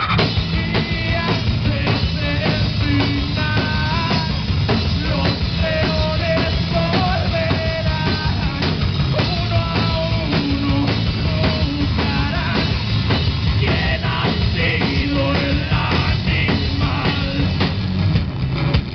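A live punk-rock band playing loud: electric guitar, bass guitar and a drum kit, with a singer's vocals over the mix.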